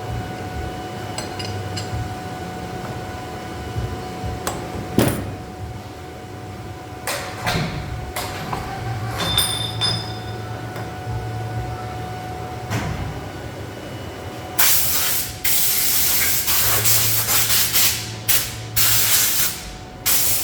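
Workshop sounds at a three-axis CNC machining center: a steady machine hum with a few sharp metallic knocks. About three-quarters of the way through come repeated loud bursts of hissing, like air or coolant spraying.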